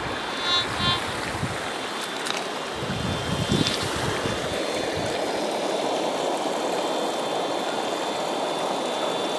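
Steady rush of flowing river water. A few low bumps in the first half may come from handling the plastic sluice mat.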